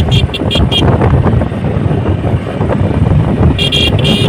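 Motorcycle riding along a road: engine and road noise with heavy wind buffeting on the microphone. Short bursts of a high-pitched beeping come in the first second and again near the end.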